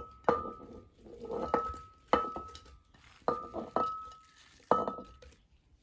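A ceramic plate clinking against the rim of a glass blender jar about six times, each clink ringing briefly at the same pitch, with softer clatter of watermelon chunks being pushed off the plate into the jar.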